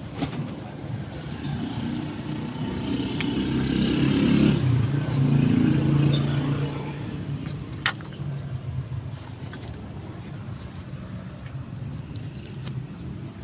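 A motor vehicle passing by: its engine sound swells to a peak about five seconds in and then fades away. A few sharp clicks are heard along the way.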